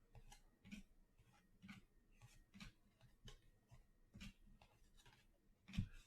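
Faint, irregular soft clicks and rustles of trading cards being flipped through by hand, a few each second.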